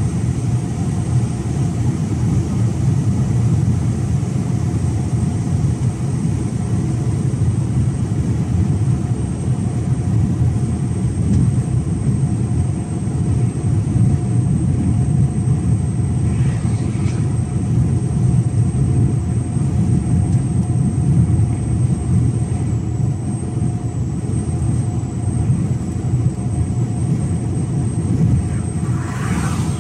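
Mercedes Actros 1853 truck cruising on the motorway with an empty semi-trailer: a steady, low engine and road drone that holds even throughout.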